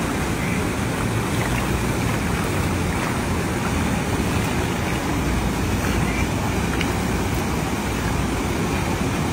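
Steady splashing of shallow water as fish thrash in a cast net being gathered up, with wind rumbling on the microphone.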